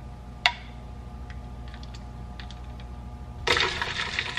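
Crushed ice clinking in a drinking glass: a sharp clink about half a second in and a few faint ticks, then, from about three and a half seconds in, a straw stirring the ice in a dense, rattling clatter.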